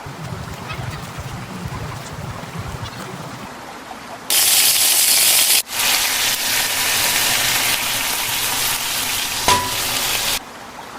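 Chicken frying in hot fat, sizzling loudly from about four seconds in, with a brief break, then cutting off abruptly near the end. A short clink comes just before it stops.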